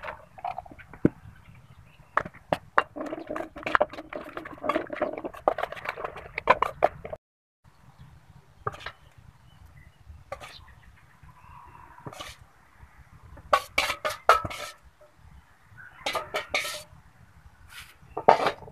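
A metal spoon clinking and scraping against a stainless steel bowl while stirring a wet larb dressing, with many sharp clinks close together. After a short break about seven seconds in, more scattered clinks follow.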